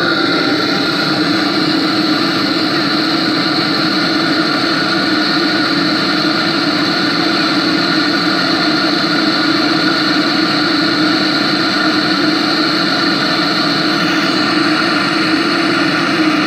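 Propane burner firing steadily into a homemade bucket furnace, a constant even rush with no change, while the aluminium charge in it heats toward melting.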